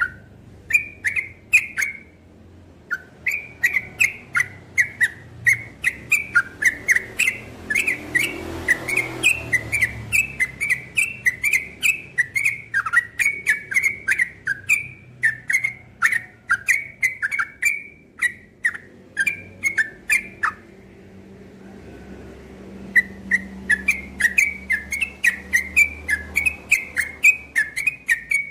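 Yellow-vented bulbul (trucukan) singing a fast, continuous run of short, sharp whistled notes, about three a second. The song breaks off briefly about two seconds in and again for about two seconds past the middle, then picks up again.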